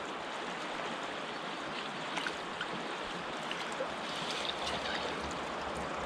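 River current flowing steadily around a wader's legs, with a few light splashes as hands move in the shallow water.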